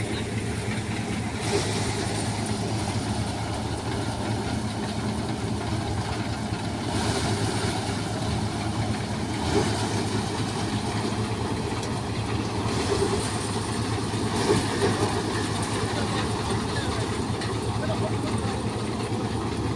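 Tractor-driven Panesar six-fan paddy thresher running steadily with a low, even hum from its drum, fans and the tractor engine. About five times a brief louder rush of noise rises over it, as bundles of rice straw go into the drum.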